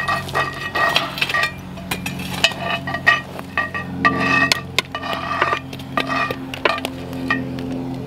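Metal coal shovel scraping up hot coals and tipping them onto a cast iron Dutch oven lid: a run of irregular clinks, knocks and scrapes of coals and steel on iron, some scrapes ringing briefly.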